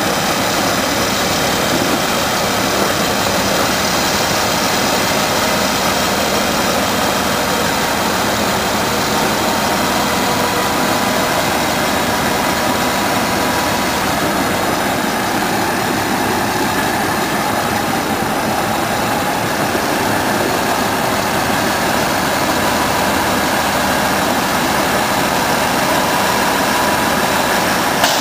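Heavy dump truck's diesel engine running steadily, heard close up, with no revving or change in pitch.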